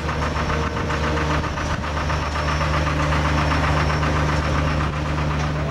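An engine running steadily, a low hum with a fast even pulse.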